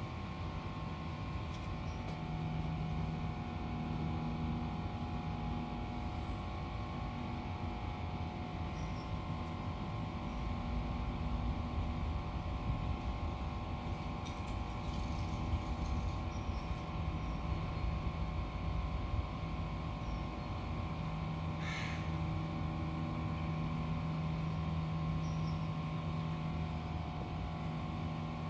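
Steady mechanical hum made of several held low tones over a low rumble. A few faint clicks come around the middle, and one short, sharper sound comes about three-quarters of the way through.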